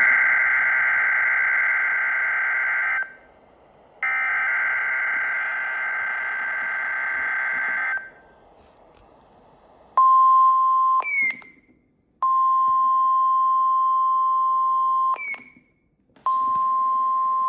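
Emergency Alert System tones from NOAA Weather Radio: two long buzzy digital header data bursts, then a steady high alert tone that sounds three times, the first two ending in a quick rising chirp. These are the tones that open a weekly test of the weather radio alarm system.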